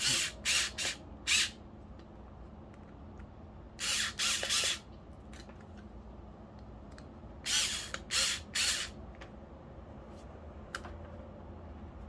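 Small cordless electric screwdriver running in short pulses, three or four quick bursts at a time, driving the screws of a replacement GFCI plug head, with light clicks of handling between the bursts.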